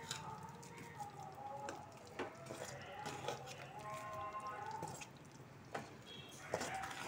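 A ladle stirring thick rice-and-moong-dal porridge (nombu kanji) in a pressure cooker: faint wet squelching, with a few light clicks of the ladle against the pot.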